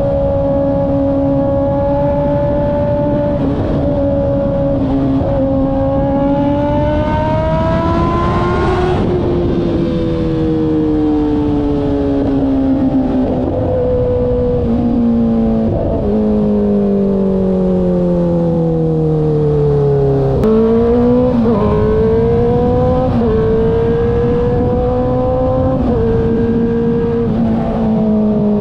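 Inline-four engine of a 2013 Kawasaki ZX-6R 636 motorcycle, heard from on the bike while riding. The revs climb for the first nine seconds or so, then fall slowly for about eleven seconds, jump sharply about twenty seconds in, and then hold with small rises and dips.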